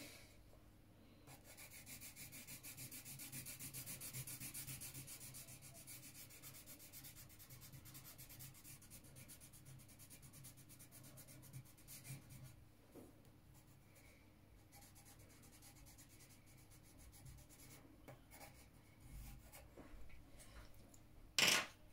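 Colouring pencil shading an area on drawing paper in rapid back-and-forth strokes. It is faint, strongest in the first few seconds and thinning out into scattered strokes in the second half, with a short louder sound just before the end.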